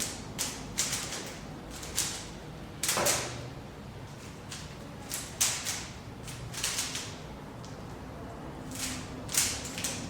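Rubik's Cube being turned quickly by hand during a speed-solve: the plastic layers click and scrape in quick, uneven bursts.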